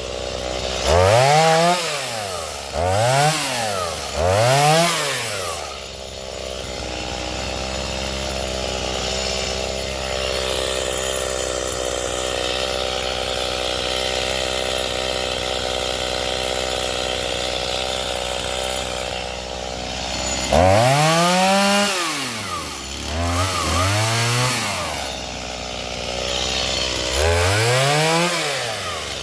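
Stihl MS 210 two-stroke chainsaw revved up and back down three times in quick throttle blips, then running steadily at a lower speed for about fifteen seconds. It is revved several more times near the end.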